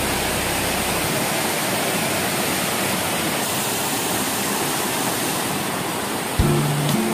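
Corbett Falls pouring down a rock face into a pool: a steady, even rush of falling water. Background music ends about a second in and comes back near the end.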